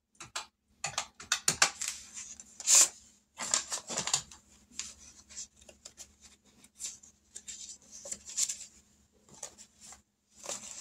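Paper handling: cash bills and paper savings envelopes being opened and rustled, an irregular run of short crinkles and clicks.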